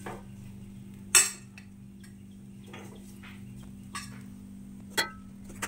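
A metal utensil scraping and clinking against an aluminium kadai and a steel bowl as cooked leaf stir-fry is served out. There are a few sharp clinks, the loudest about a second in and others near four and five seconds, over a steady low hum.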